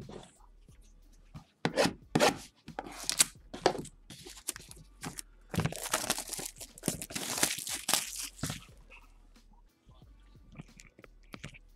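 Plastic shrink wrap being torn and stripped off a sealed trading-card hobby box, a run of crinkling, tearing bursts that grows denser and louder toward the middle, then stops.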